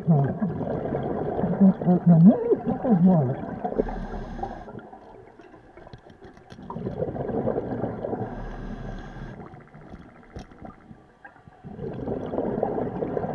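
Scuba diver breathing underwater through a regulator: long bubbly exhalations, with wavering low honks in the first few seconds, alternating with a short hissing inhale about every four to five seconds.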